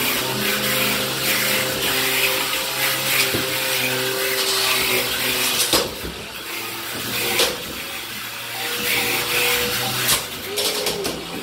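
Beetleweight combat robots fighting: their electric motors whine at steady pitches that shift as they drive and spin up, and sharp metallic hits ring out several times as the robots collide.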